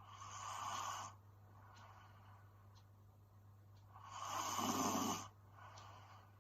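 A young woman snoring in her sleep: two breaths about four seconds apart. The second is louder and has a low rasp.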